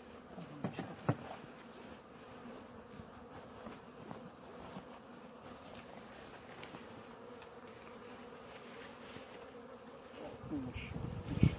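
Honeybees buzzing steadily in an opened hive, with a few sharp wooden knocks and clacks as a comb frame is worked loose and lifted out with a metal frame grip; the loudest knocks come near the end.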